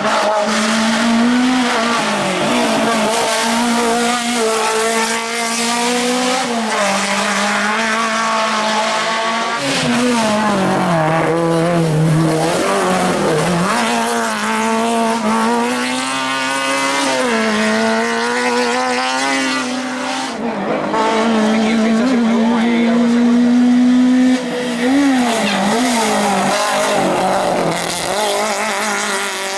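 Citroën AX A 1/2 hill-climb car's tuned 1.3-litre four-cylinder engine running hard at high revs. Its pitch climbs and falls repeatedly through gear changes, with a deeper dip around ten to thirteen seconds in and a brief drop near twenty-five seconds.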